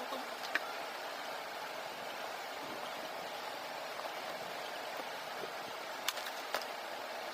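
Steady low hiss of background noise, with a few small sharp clicks: one about half a second in and two close together near the end, typical of handling tools or parts.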